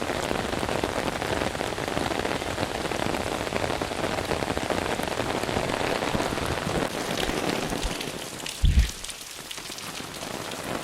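Heavy rain pouring down steadily. Near the end there is a short low thump, and after it the rain sounds a little quieter.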